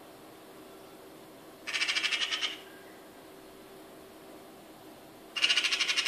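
Eurasian magpie giving its harsh chattering rattle twice, each rattle a rapid run of clacks under a second long, about four seconds apart. This is the magpie's alarm chatter, the call it uses when mobbing a predator such as a cat.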